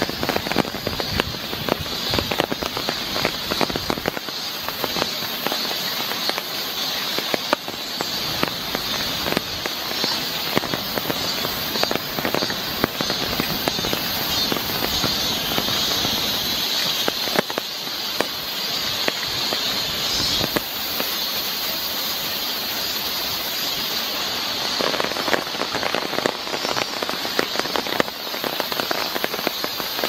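Heavy rain falling on a wooden boardwalk and forest foliage: a dense crackle of close drops over a steady hiss.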